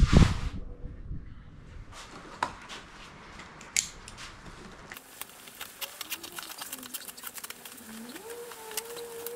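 A single loud knock at the start, then from about halfway through the crackle and clicking of plastic stretch wrap being slit open with a utility knife and pulled off a cardboard box, over a faint wavering tone.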